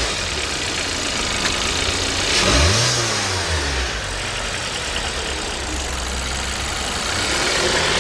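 Hyundai Grandeur HG's 2.4-litre four-cylinder gasoline engine idling, revved up once about two and a half seconds in and let fall back to idle. It is being run up and down through low revs to check for a rumble traced to a seized one-way clutch in the alternator pulley.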